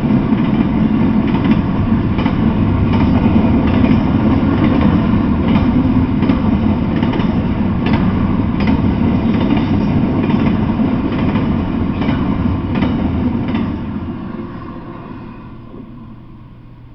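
Double-stack intermodal freight train rolling past, its steel wheels rumbling on the rails with repeated clicks over the rail joints. The noise fades away from about fourteen seconds in as the end of the train goes by.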